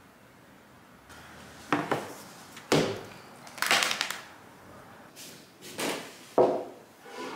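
Things being set down and handled on a table top, among them a phone and a drinking glass: about seven separate knocks and clatters, starting about a second in.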